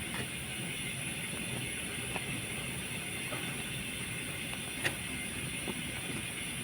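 Steady background hiss and hum with a few light clicks, the most distinct about five seconds in.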